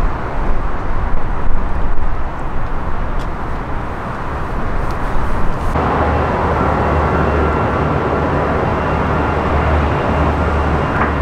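Jet airliner noise: a distant rumble from an airliner on approach, then an abrupt cut about six seconds in to louder, steady jet engine noise with a thin high whine from an Iberia airliner on its takeoff run.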